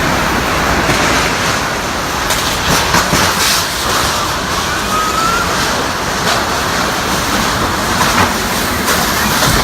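Heavy rain and wind of a summer storm: a loud, steady rushing noise with a few brief louder gusts.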